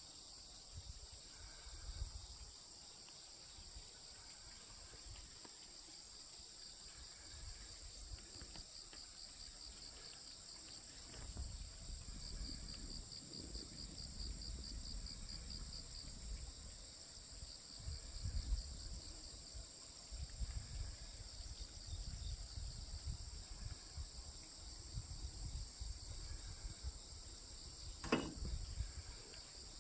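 A steady, high-pitched insect chorus that pulses rhythmically in stretches, with low wind buffeting on the microphone through the second half and a brief sharp knock near the end.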